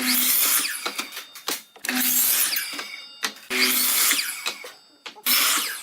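A woodworking tool cutting or working wood in four separate strokes, each about a second long, roughly one every second and a half.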